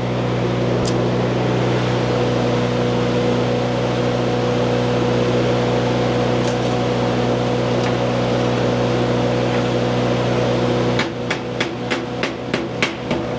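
Stick welding: the welding machine's steady hum under the crackle of the arc as a rod runs a bead. About eleven seconds in the steady sound breaks into irregular sharp pops, the welder having got too far ahead of his puddle and got caught.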